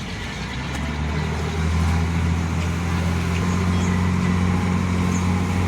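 Boat engine running with a steady low hum, swelling over the first second or two and then holding even.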